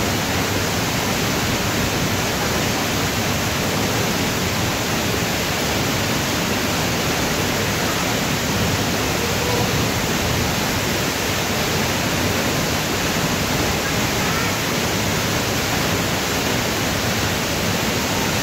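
A tall waterfall pouring into a rock pool: a steady, unbroken rush of falling water that fills every pitch and never changes.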